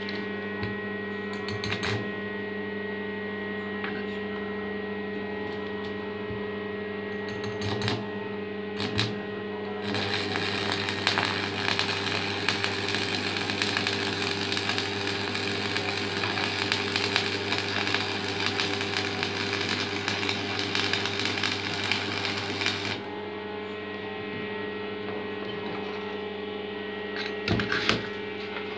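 Homemade 9 kW AC transformer welder humming steadily; about ten seconds in, a stick-welding arc strikes and crackles for about thirteen seconds, then stops, leaving the hum. A few short clicks come before the arc and near the end.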